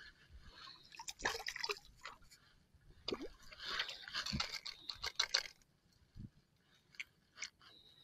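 Water splashing and dripping close to the microphone in short, irregular bursts, about a second in and again from about three to five and a half seconds in, with a quiet spell after.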